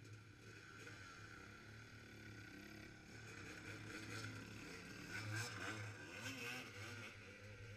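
Dirt bike engines idling and revving, their pitch rising and falling, louder in the second half.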